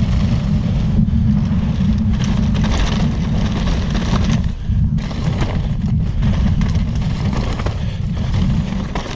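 Wind buffeting a bike-mounted action camera's microphone at speed, over the rattle and tyre noise of a chainless downhill mountain bike running over a dirt trail. The noise eases briefly about halfway.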